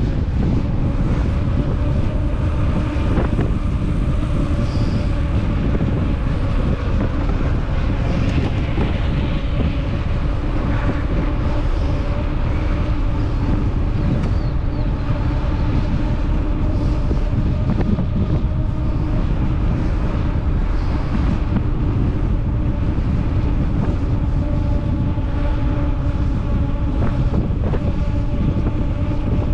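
Heavy wind rumbling on the microphone, with a steady low hum underneath.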